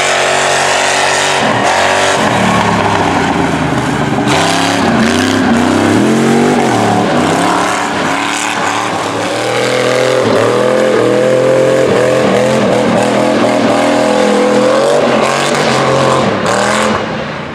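Engine of a lifted Cadillac Escalade off-road truck revving hard, its pitch climbing and dropping again and again as the driver works the throttle over dirt jumps and through turns. It eases off slightly near the end.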